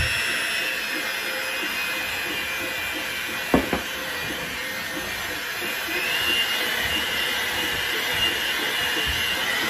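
Electric hand mixer running, its beaters whirring through creamed butter and sugar in a ceramic bowl as eggs are beaten in. The whine sits lower for the first few seconds and rises again about six seconds in, with a single knock about three and a half seconds in.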